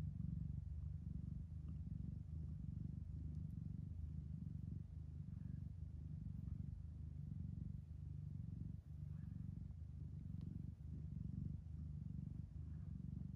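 Domestic cat purring as she nurses her newborn kittens: a low, continuous purr that swells and dips about every second or two.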